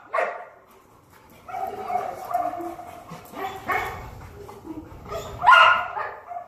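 A dog barking three times, the loudest bark near the end, with a held whine between the barks.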